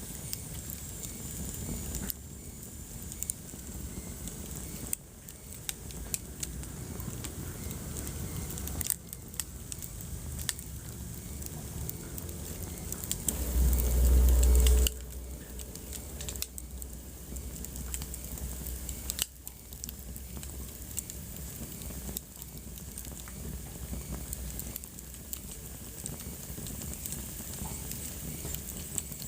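Wood fire crackling in a fireplace, with frequent sharp pops over a steady hiss. About halfway through, a louder deep rumble lasts for a second or two.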